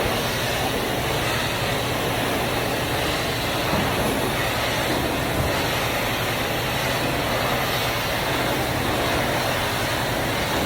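Steady rushing noise of a carpet cleaner's vacuum extraction system running during tile cleaning.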